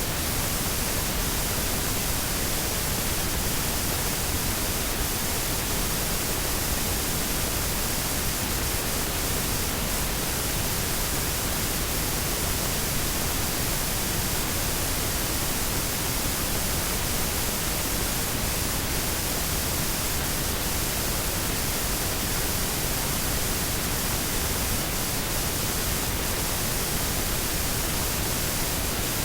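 Washing machine running: a steady, even rushing noise that does not change.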